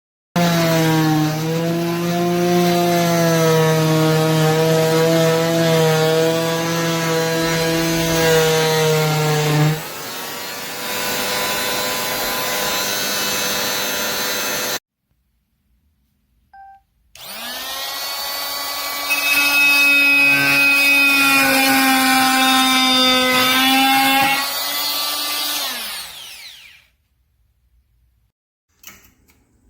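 Hammerhead 2.2-amp corded oscillating multi-tool running in two long stretches with a steady buzzing hum, the second winding down in pitch as it is switched off.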